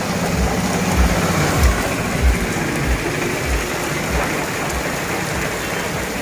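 Heavy rain pouring onto a road, a steady hiss throughout. A motor vehicle's engine runs under it for the first second or so, and a series of low thumps comes roughly every half second over the first five seconds.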